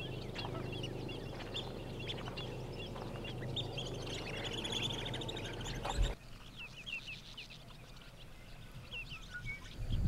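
A flock of wetland birds calling, many short high calls overlapping over a low rumble. A brief thump about six seconds in, after which the calls are fainter and sparser.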